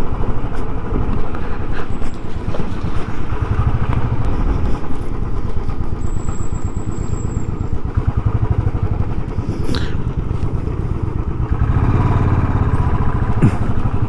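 Motorcycle engine running steadily as the bike rides slowly over a rough, broken road.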